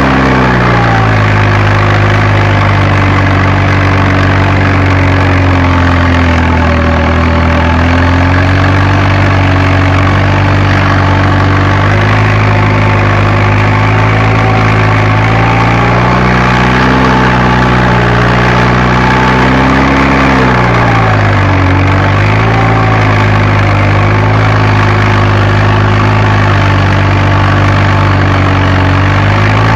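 Fiat Agri tractor's diesel engine running steadily under working load during seedbed preparation, heard from the cab. Its pitch dips sharply about two-thirds of the way through and recovers within a second or two.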